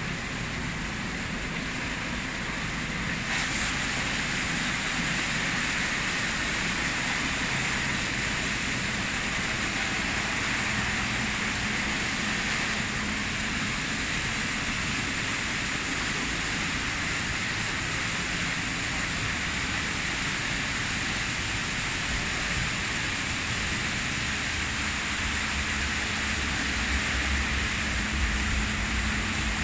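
Rollover car wash machine at work: water spraying and rotating foam brushes scrubbing a pickup truck, giving a steady hiss with a faint low hum underneath.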